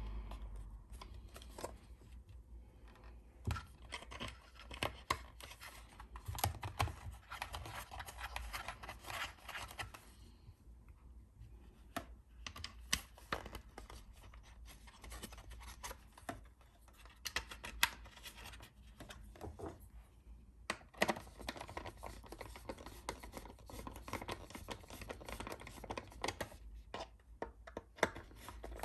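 Small plastic parts being handled and fitted: irregular clicks, taps and scraping as a wing mirror indicator unit is worked out of and into its housing.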